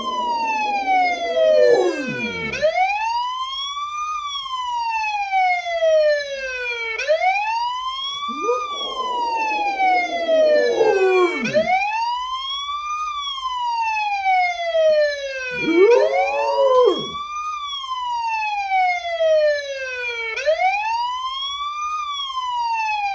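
A wailing siren rising and falling about every four and a half seconds, with a rottweiler howling along to it three times: near the start, about nine seconds in and about sixteen seconds in.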